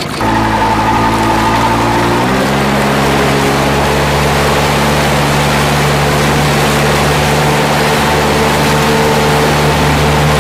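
Honda 75 four-stroke outboard motor running under way, with the wash of the wake. Its revs step up about two seconds in, then hold steady.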